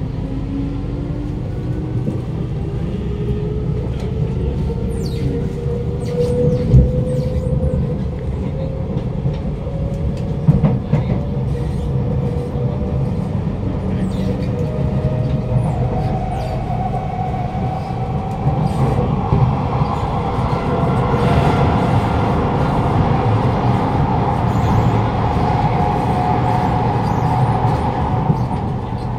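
Inside a Kawasaki Nippon Sharyo C751B metro train pulling away from a station: the traction motors' whine rises in pitch as the train gathers speed, and a higher whine climbs slowly later on. Steady wheel-and-rail rumble runs underneath, with scattered clicks and a couple of knocks from the track.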